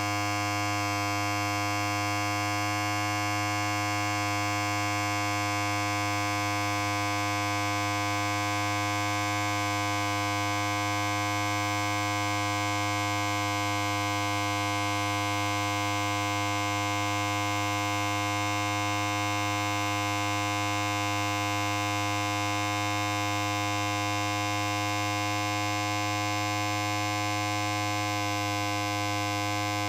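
Electric hair clipper running continuously, a steady, even buzz with no change in pitch or level.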